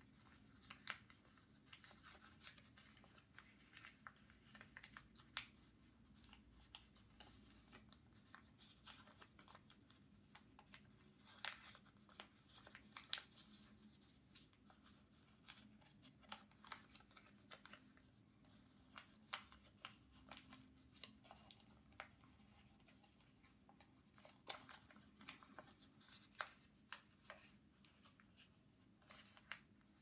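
Origami paper being folded and creased by hand: faint, irregular crinkles and crisp little clicks, with a few sharper snaps, the loudest about halfway through.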